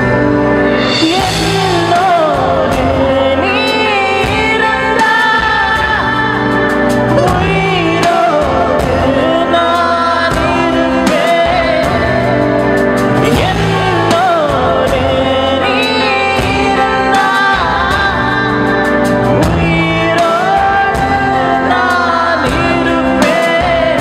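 A male singer performing a Tamil film song live through a PA sound system, his voice gliding and ornamented over a backing of chords and a steady beat.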